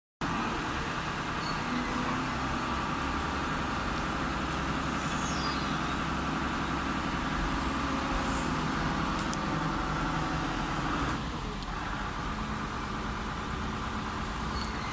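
TCM 7-ton forklift's engine running steadily while its triplex mast is raised hydraulically; the note drops a little about eleven seconds in.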